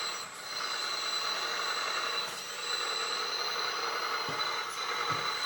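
Small hydraulic pump of a 1/14-scale LESU DT60 RC bulldozer whining steadily as the blade arm is worked, mixed with the simulated diesel engine sound from its sound board.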